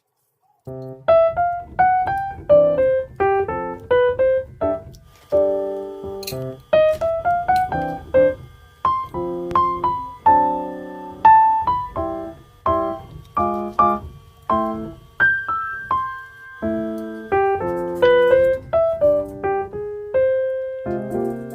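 Background music: a piano playing a light melody of single notes with chords beneath.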